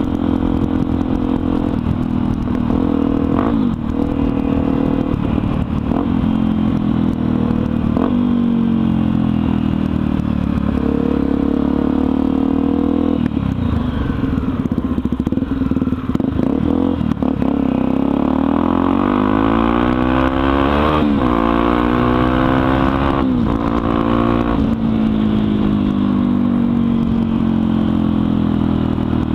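Honda XR250 Tornado's single-cylinder four-stroke engine running through an exhaust with its baffle removed, while the motorcycle is ridden. The pitch repeatedly rises and falls as it is revved through the gears, with a long climb past the middle.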